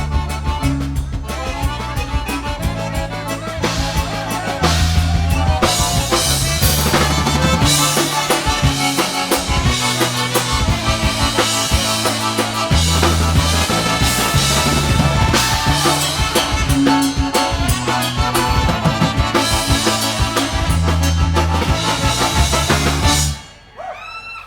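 Live polka band playing an oberek, with a drum kit and brass over a steady pulsing bass beat; the tune ends with a final hit about a second before the end.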